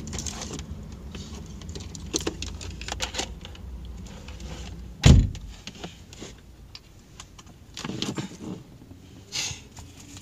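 Handling noise on a car dashboard: scattered clicks and rustles of cables and small plastic gear being moved about, with one heavy thump about five seconds in.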